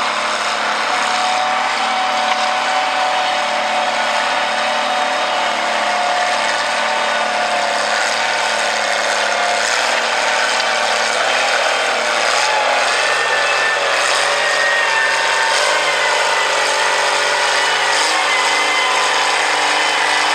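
Farmall 460 tractor's six-cylinder engine running hard under load while pulling a weight-transfer sled. Its pitch climbs in a few steps over the second half.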